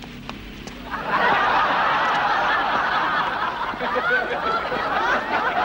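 Studio audience laughing, swelling up sharply about a second in and continuing steadily.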